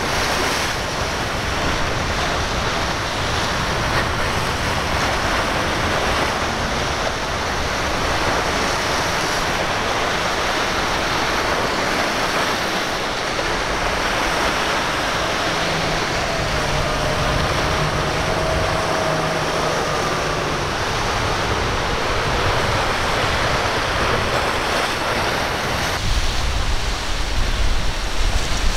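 Rough surf and wind make a steady rushing noise of breaking waves. A boat's engine is faintly heard passing about two-thirds of the way through. Near the end, wind buffeting the microphone adds a gusty low rumble.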